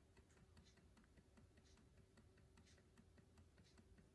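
Near silence: room tone with a faint steady hum and a scattering of faint light ticks.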